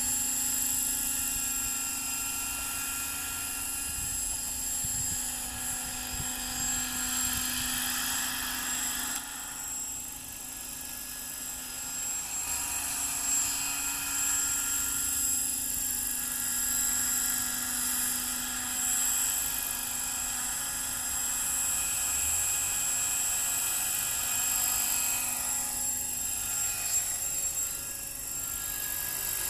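Trim Corporation Accurate 550 radio-controlled helicopter in flight: a steady high-pitched whine from its motor and rotors, shifting in pitch and loudness as it manoeuvres, dipping about ten seconds in and again near the end.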